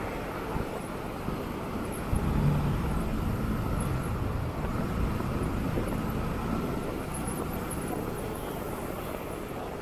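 Steady road noise heard from a riding motorcycle in city traffic: engines running and tyre hiss. A deeper rumble grows louder about two seconds in and stays.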